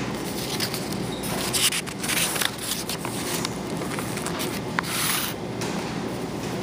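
Pages of a paper booklet being handled and turned: paper sliding and rustling, with louder swishes about two seconds in and again about five seconds in, over a steady low hum.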